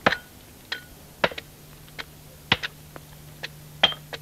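Axe blows chopping into a felled oak log, about eight sharp strikes at roughly two a second, a few with a brief metallic ring.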